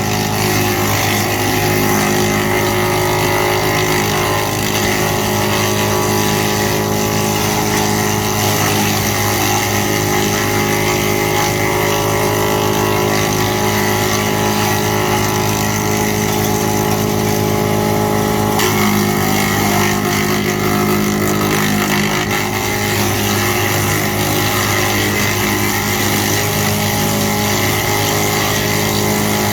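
GL&D M175DS tractor-mounted woodchipper and the tractor driving it, running steadily with a constant loud machine drone; the tone shifts slightly about two-thirds of the way through.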